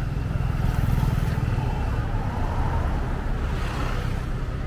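Road traffic on a busy city street: vehicle engines running close by with a steady low rumble, loudest about a second in, as vehicles pass.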